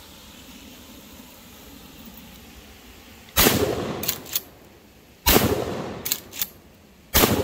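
H&R Pardner pump-action shotgun fired three times, about two seconds apart. Each shot is followed by a double clack as the slide is racked to chamber the next shell.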